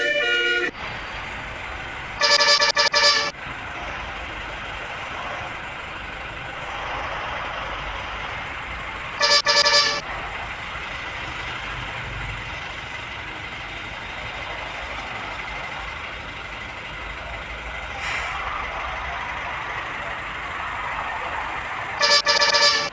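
Indonesian tour bus's Basuri telolet horn, a multi-trumpet air horn, sounding three short blasts of several notes at once, about a second each: one a couple of seconds in, one about nine seconds in, and one near the end. Steady engine and traffic noise runs between the blasts.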